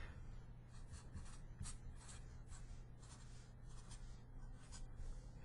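Sharpie felt-tip marker writing on paper: a quick series of faint, short strokes as numbers are written down.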